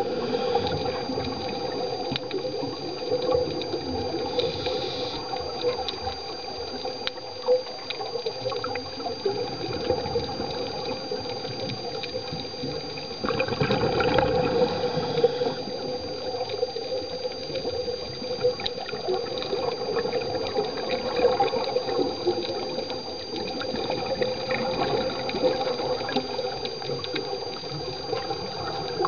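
Underwater sound of scuba diving: a steady rush of water with bubbling from divers' exhaled regulator bubbles, louder for a couple of seconds around the middle, and a steady high whine.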